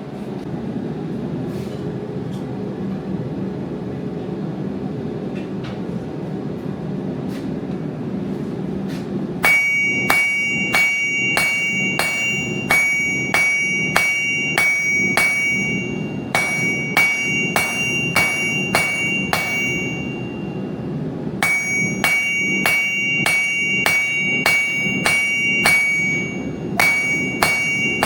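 A steady low rushing noise. About a third of the way in, a hand hammer starts striking hot metal on an anvil in runs of blows about twice a second, each blow ringing with a clear high tone, with short pauses between the runs.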